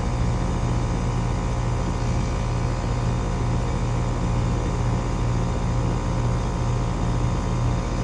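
Steady running hum of a 3-ton central air conditioner's outdoor unit, compressor and condenser fan, powered by a portable gas generator that is running too. The compressor is running under load after starting through a soft start.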